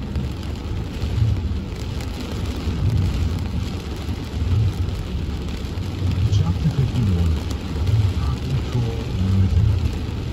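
Rain and road noise heard from inside a car in a downpour, under a muffled, deep voice from the car's audio system.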